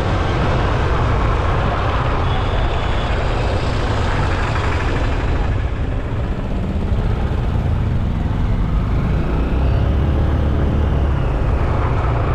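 Steady road and traffic noise heard from a moving rider, with a heavy low rumble. Faint vehicle engine tones rise and fall in the second half.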